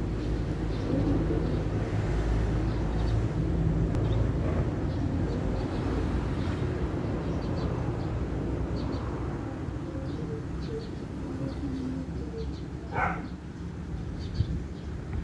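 Wind buffeting the microphone as a steady low rumble, with faint short bird chirps scattered through it.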